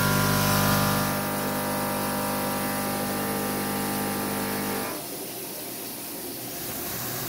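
A CNC mill facing a 6061 aluminum plate under flood coolant: a steady, pitched hum of several tones from the spindle and cutter in the cut, over the hiss of coolant spray. The hum stops about five seconds in as the cutter leaves the cut, and the coolant hiss carries on.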